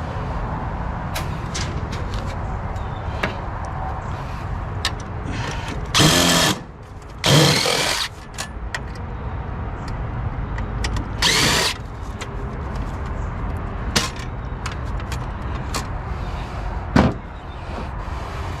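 Cordless drill-driver spinning in three short bursts, about six, seven and eleven seconds in, with light clicks between them.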